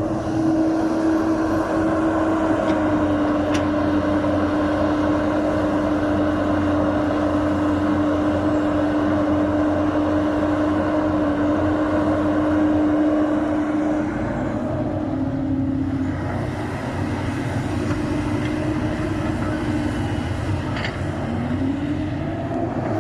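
Hyundai excavator's diesel engine running hard with a steady whine while digging. It eases to a lower pitch about two-thirds of the way through and revs back up near the end.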